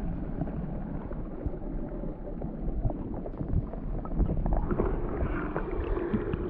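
Muffled water sloshing and low rumble heard through a camera held underwater, with scattered faint clicks, as a smallmouth bass is let go from a hand and swims off.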